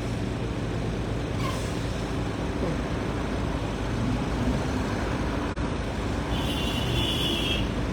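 Steady rumble of vehicle engines and outdoor noise, with a brief high-pitched whine or beep lasting just over a second near the end.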